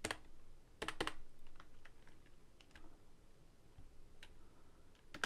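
Typing on a computer keyboard: irregular keystrokes, with sharper clicks at the start and about a second in, then lighter scattered taps.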